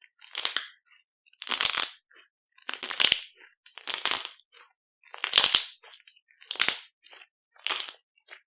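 Crunchy slime being pressed and squeezed by hand, giving seven separate crunches about once a second.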